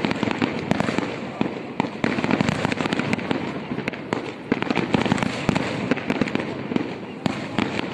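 Aerial fireworks display: a dense, continuous barrage of bangs and crackling from shells bursting in rapid succession.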